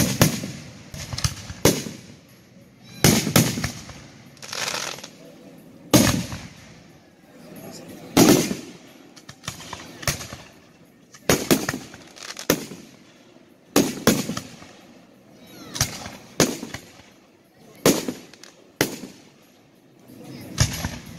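Aerial firework shells launching and bursting overhead: sharp bangs at uneven gaps of one to two seconds, each trailing off in a rolling echo.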